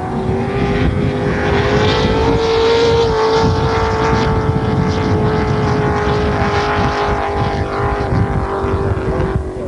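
Racing powerboat engine running hard at high revs, a steady high note that climbs a little early on and then slowly sinks in pitch.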